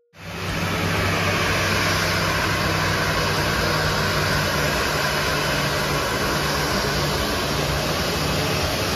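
Jet engines of a taxiing Boeing 737 airliner running at taxi power: a steady rush of jet noise with a low hum beneath.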